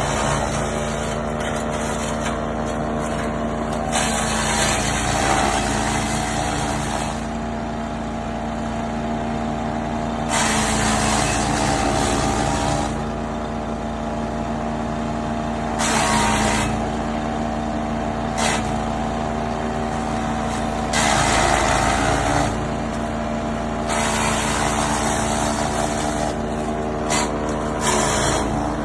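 Wood chipper running, its engine note steady underneath. Every few seconds a loud, coarse chipping and shredding noise lasting two or three seconds comes in, and the engine pitch dips at times.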